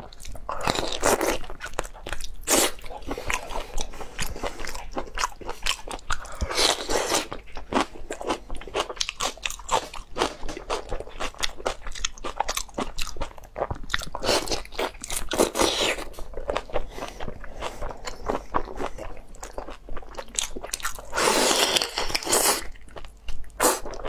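Close-miked eating of a large tiger prawn: repeated crunches of the shell being bitten and chewed. A few louder noisy stretches of about a second each come between the crunches.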